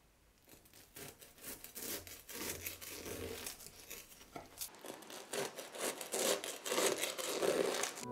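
A knife cutting through the crisp, flaky puff-pastry crust of a baked frangipane galette des rois, making a dense crackling and crunching. The crackle starts about half a second in and grows louder in the second half as the blade works down through the layers.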